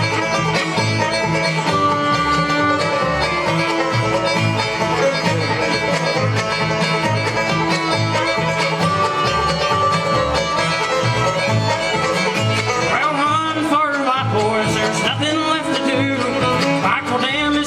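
Bluegrass band playing a fast, banjo-driven instrumental break with guitar over a steady bass pulse. A fiddle comes forward with sliding, wavering notes in the last few seconds.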